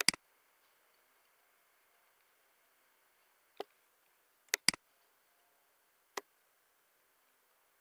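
Computer mouse clicking: a quick double click at the start, single clicks about three and a half and six seconds in, and another quick pair around four and a half seconds, over faint room hiss.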